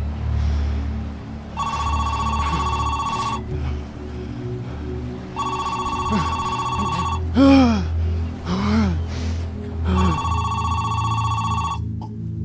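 Telephone ringing three times, each ring about two seconds long, over a steady low music drone. A few short rising-and-falling tones come in around the middle; the loudest is about halfway through.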